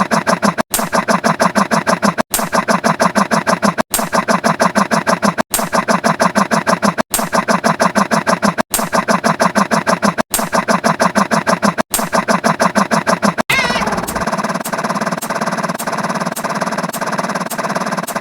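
A sound effect played on a loop: a rapid pulsing, buzzing tone that restarts about every second and a half, each time after a brief cut. About thirteen seconds in it changes to a different steady looped sound with regular clicks.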